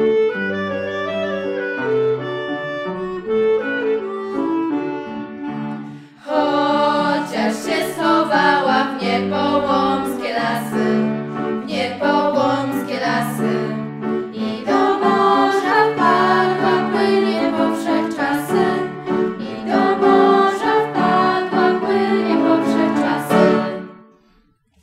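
Instrumental music: a krakowiak, the Polish folk dance. A softer passage of held notes gives way about six seconds in to a louder, livelier section with sharp accented chords, and the piece stops shortly before the end.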